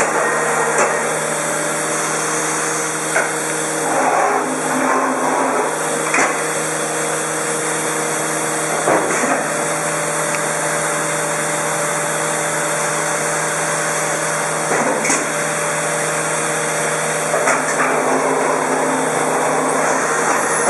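Shoda NC trimming machine cutting a pressure-formed plastic keyboard cover, with the spindle and dust extraction running steadily. Brief louder cutting bursts come every few seconds as the cutter works along the part.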